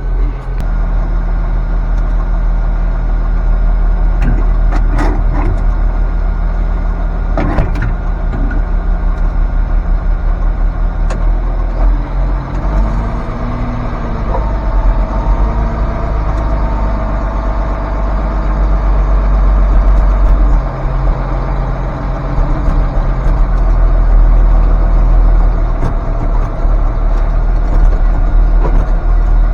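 Tractor diesel engine idling steadily, heard from inside the cab, the engine note shifting for a few seconds around the middle, with a few faint clicks.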